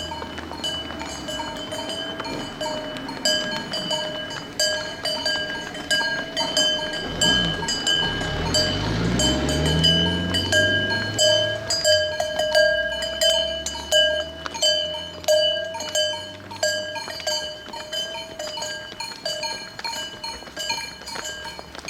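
Cowbells on a herd of walking cows, clanking and ringing unevenly without a break. A deeper, pitched sound swells and fades around the middle.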